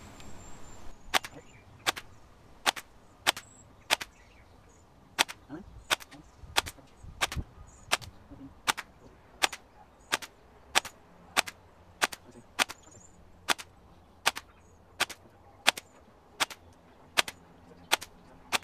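Tokyo Marui Mk18 MOD.1 recoil-shock electric airsoft rifle firing single, slow, evenly paced shots: a sharp snap about every two-thirds of a second, with one slightly longer pause about four seconds in.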